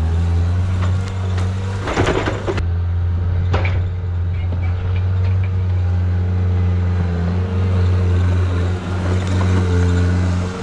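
John Deere 323D compact track loader's diesel engine running steadily under load while grading dirt. There are two short bursts of clatter about two and three and a half seconds in.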